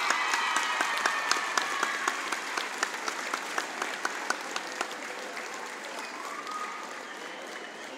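A crowd applauding a prize winner, with voices cheering over the clapping in the first two seconds. The applause then thins and fades away toward the end.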